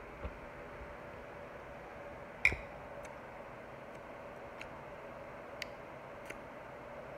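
A drinking glass set down with one sharp click about two and a half seconds in, followed by a few faint ticks, over a steady low hum.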